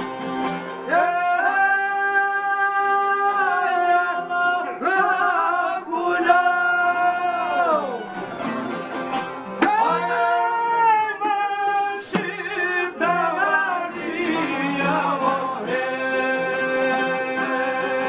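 Men singing an Albanian folk song in long held phrases that fall away at their ends, accompanied by plucked çifteli long-necked lutes and an accordion.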